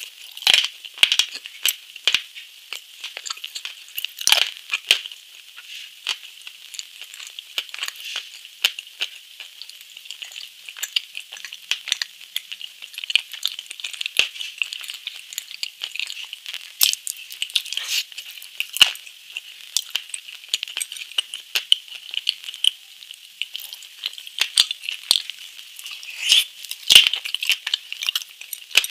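Close-miked eating sounds: crisp crackling crunches and chewing as a chocolate-shelled dessert is bitten and eaten. There are dense small crackles throughout, with a few louder crunches.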